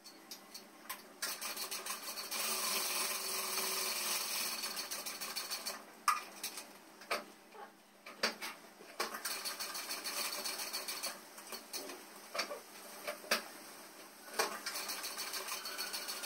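Industrial flatbed lockstitch sewing machine stitching denim. It runs steadily for a few seconds, then in shorter runs with brief stops and sharp clicks between them.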